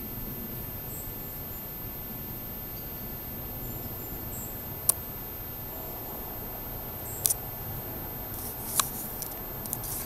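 Forest ambience: a steady low rumble, with a couple of faint high chirps in the first half and a few sharp clicks in the second half.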